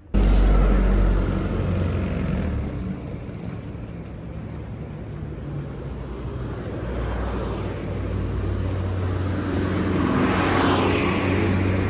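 Road traffic passing on a city street, a steady rumble of engines and tyres. One vehicle goes by close near the end, the loudest moment.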